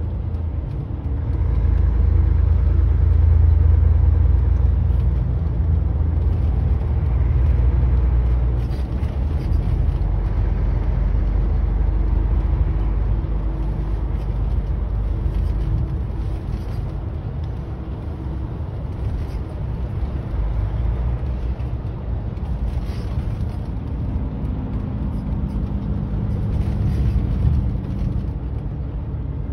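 Truck driving at freeway speed, heard from inside the cab: a steady low engine and road rumble with tyre noise, swelling a little a couple of seconds in.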